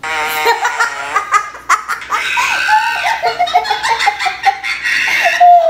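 A young child laughing loudly and without a break, in repeated high-pitched giggles.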